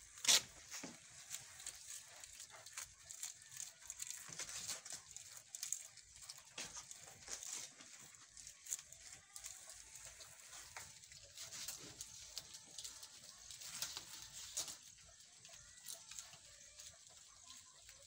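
Goats bleating now and then, over the rustling and crackling of large banana leaves being handled at the pen fence. A single sharp crack just after the start is the loudest sound.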